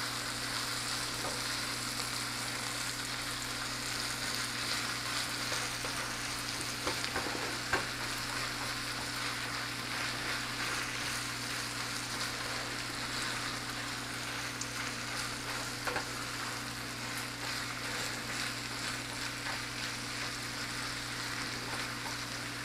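Ground turkey with diced bell peppers and onion sizzling in a frying pan over fairly high heat as it is broken up and stirred with a spoon. A steady frying hiss over a low hum, with a few sharp clicks of the spoon against the pan, about eight seconds in and again near sixteen seconds.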